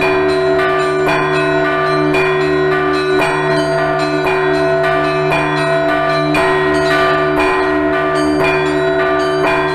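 Russian Orthodox church bells rung in a continuous, loud peal: smaller bells struck in quick succession, several times a second, over the sustained hum of larger bells.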